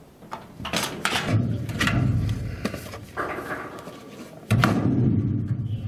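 Combination lock on a metal school locker being dialed, with a few sharp clicks. The locker is then handled and opened with knocks and clatter; a sudden louder bang comes about four and a half seconds in.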